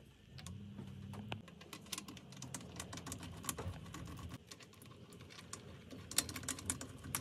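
Faint small clicks and ticks of spark plugs being threaded by hand into a snowmobile triple's aluminium cylinder head, metal on metal. A faint low hum runs through the first half.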